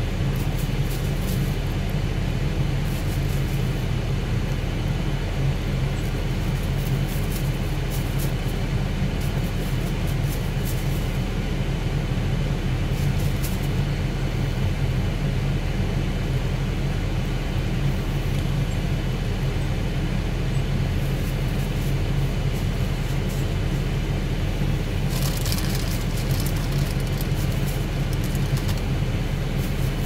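Steady low hum of a car engine idling, heard from inside the car's cabin.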